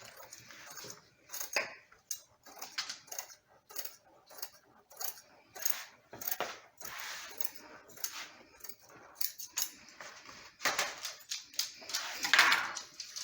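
Scissors snipping through new window screen mesh in a run of short, irregular cuts, with the mesh rustling as it is handled.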